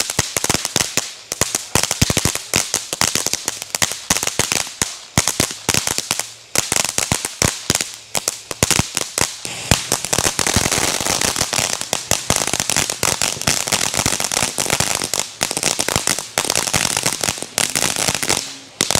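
Ground fountain fireworks spraying sparks, with a steady hiss and dense, rapid crackling throughout.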